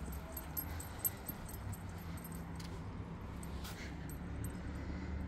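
Faint small metallic jingling, about three or four tinkles a second, in step with walking and thinning out after the first half, over a steady low outdoor hum.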